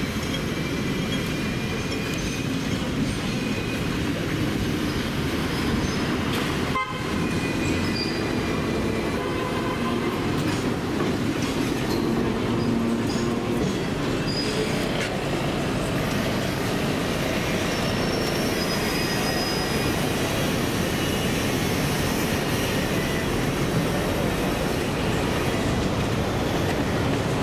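Hong Kong double-decker tram heard from on board: a steady rumble of wheels on rails and running gear, with faint brief high squeals now and then.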